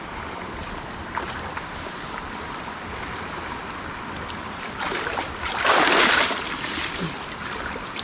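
Fast-flowing river water rushing steadily, with a brief louder rush of water about six seconds in.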